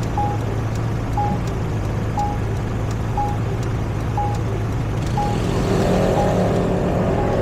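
City street traffic with a steady low engine hum, and a short electronic beep repeating about once a second. A wavering pitched sound joins about five and a half seconds in.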